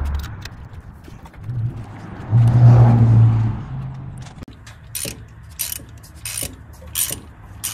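Socket ratchet clicking in short strokes, about two clicks a second in the second half, as old spark plugs are worked loose from a V8 engine. Near the middle, a louder low hum lasts about a second.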